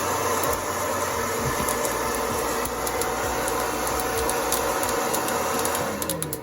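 A small electric motor runs steadily with a dense rattle of coffee beans, then winds down and stops about six seconds in.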